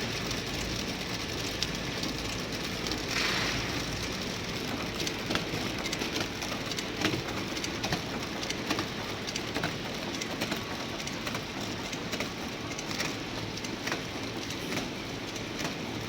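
Fried instant noodle production line machinery running: a steady mechanical noise with irregular clicks and clatter, and a brief hiss about three seconds in.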